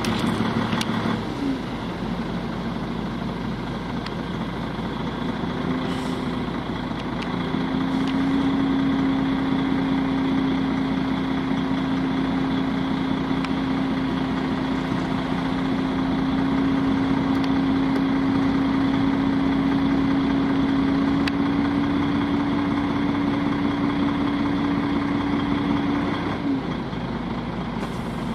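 A motor vehicle engine running steadily, its hum stepping up slightly in pitch about seven seconds in, then dropping away with a short glide near the end.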